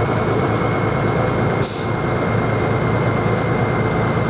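466-cubic-inch Hot Farm class pulling tractor's diesel engine running steadily at the end of a pull, with a steady high whine over the engine note.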